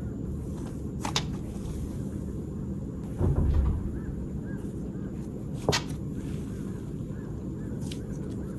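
Slime being handled: a few sharp pops, about one, six and eight seconds in, and a soft, heavier squish about three seconds in, over a steady low rumble.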